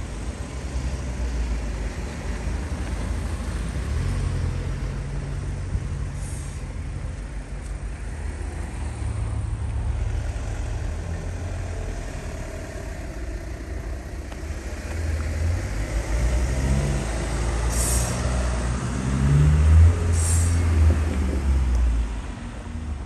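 Road vehicle engine rumbling, its pitch shifting and growing louder in the last third before falling away, with a few short hisses.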